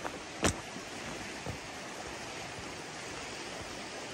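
Steady rushing of nearby falling water, with one sharp knock about half a second in and a few faint thumps.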